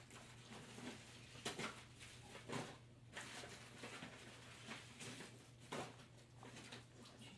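A husky licking and sniffing treat crumbs off a carpet: faint, irregular wet mouth smacks and clicks, a few to several per second-and-a-half, over a steady low hum.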